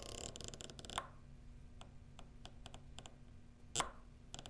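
Detent clicks of a Discovery Optics ED PRS 5-25 riflescope turret being turned by hand. A fast run of clicks comes first, then single clicks a few tenths of a second apart as the dial is stepped one click at a time, with a sharper click near the end.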